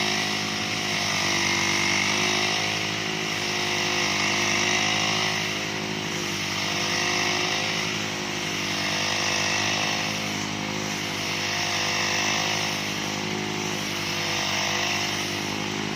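Engine-driven grass-cutting machine running steadily while cutting grass, its level swelling and easing gently every few seconds.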